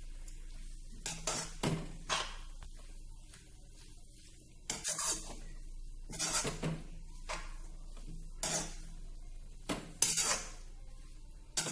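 Steel spoon scraping and clinking against a metal kadai while stirring a leafy vegetable stir-fry, in irregular strokes a second or two apart.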